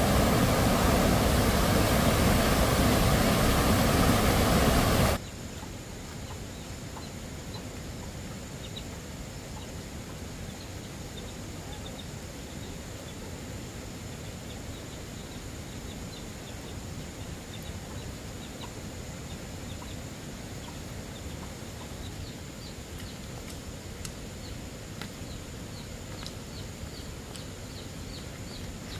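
A loud, steady rushing noise cuts off abruptly about five seconds in. It leaves a quiet rural background of faint, short high chirps from birds that come more often near the end.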